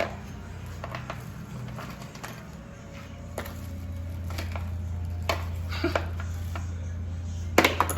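Scattered clicks and knocks of metal hand tools and small parts being handled, over a steady low hum that grows louder about three and a half seconds in. The loudest knock comes near the end.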